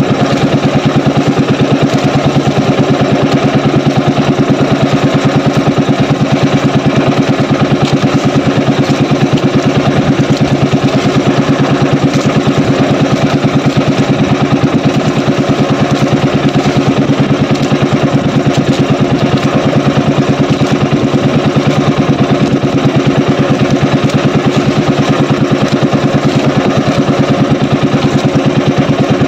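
Small outrigger fishing boat's (bangka's) engine running steadily at an even speed with the boat under way, a loud constant drone that neither rises nor falls.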